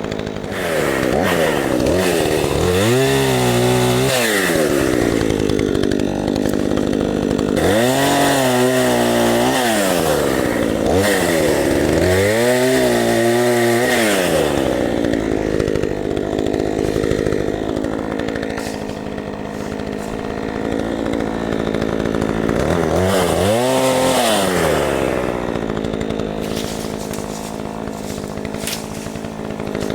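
An 18-inch Craftsman two-stroke chainsaw trimming branches. It revs up and back down four times, with the longest pause, from about 15 to 22 seconds in, idling steadily, and it returns to idle between the bursts.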